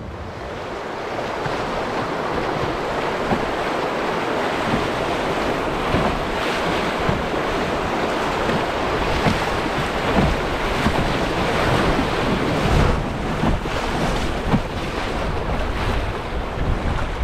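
Rushing, broken water of a shallow river rapid churning around an open canoe's bow, with wind buffeting the microphone in low gusts.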